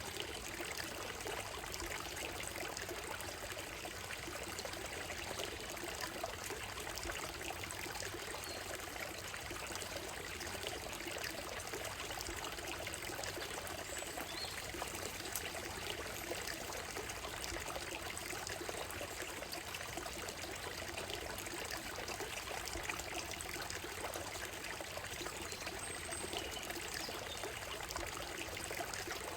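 A shallow stream running steadily over a gravel bed, water trickling and splashing over stones, with a few faint, brief bird calls above it.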